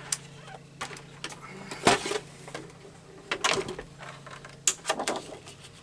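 Sheet of patterned paper being handled and cut: a handful of short rustles and clicks at uneven intervals, over a low steady hum that stops about three quarters of the way through.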